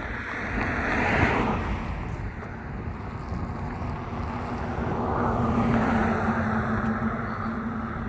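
Cars passing on the road: one swells past about a second in, and a second vehicle with a steady engine hum goes by around five to six seconds in.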